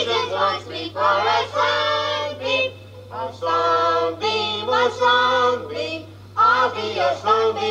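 A group of children singing a song together, in sung phrases with short breaks between them. A steady low hum runs underneath.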